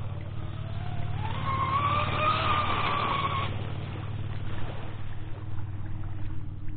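Electric RC catamaran's motor whining at speed across the water, rising in pitch as it spools up, then cutting off suddenly about three and a half seconds in as the throttle is let off.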